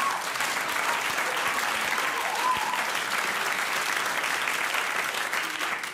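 Studio audience applauding steadily after a punchline, with a few voices calling out briefly in the crowd.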